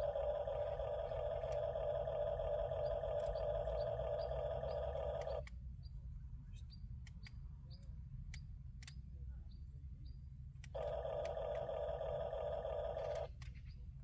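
Huina 1554 radio-controlled toy bulldozer's small electric motors and gearing whining steadily, cutting off about five and a half seconds in, then running again for about two and a half seconds near the end.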